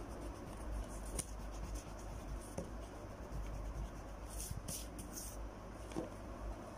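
Faint pencil strokes scratching on paper during sketching, with a few soft taps and a cluster of quicker strokes a little past the middle, over a low steady hum.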